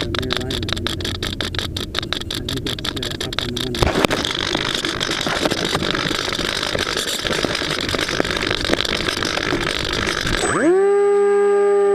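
Harsh hiss with rapid crackling, then about ten seconds in an abrupt switch to a steady buzzing tone that starts to rise near the end. This fits the electric motor of a small RC jet heard over a noisy FPV link.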